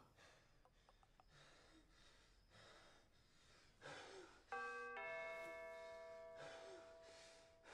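A two-note doorbell chime, ding then dong, rings out about four and a half seconds in and fades over a couple of seconds. Before it, a man's faint, heavy breathing.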